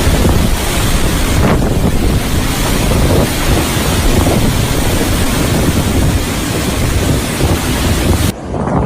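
Strong storm wind blasting the microphone, a loud, steady rushing rumble. It cuts off suddenly near the end, replaced by quieter sound with a few knocks.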